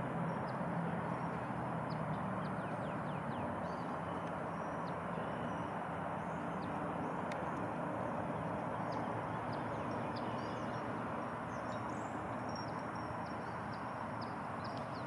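Small woodland songbirds giving short, high, downslurred call notes, with a quick run of them near the end, over a steady rushing background noise.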